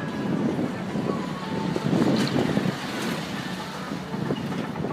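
Road traffic: cars and trucks passing, a continuous noise that swells about two seconds in.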